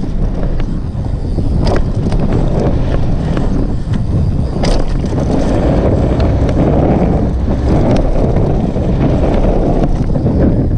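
Wind rushing over an action camera's microphone during a fast downhill mountain-bike run, with scattered sharp knocks and rattles from riding over rough ground; the loudest knock comes about four and a half seconds in.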